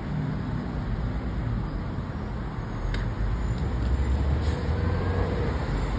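City road traffic: a steady low engine rumble of vehicles on the road, growing heavier about four seconds in, with a single sharp click about halfway through.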